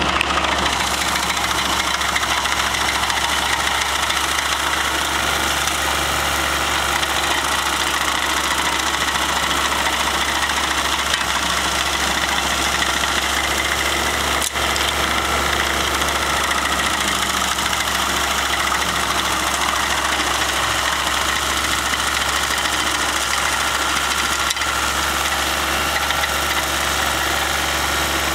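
Large remote-controlled stump grinder's engine running steadily at a constant loud level, with no change in speed.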